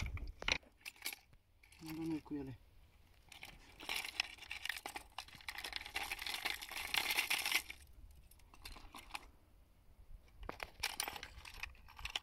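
Metal fishing lures and hooks clinking and rattling in a plastic compartment tackle box as fingers rummage through it, busiest about four to seven seconds in.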